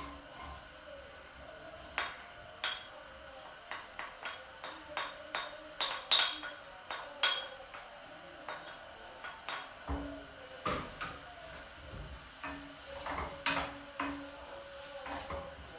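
A wooden spoon tapping and scraping against a plate as chopped onion is knocked off it into a nonstick frying pan, then stirring the onion in the pan's butter: a long run of sharp taps and clinks, thickest in the first half.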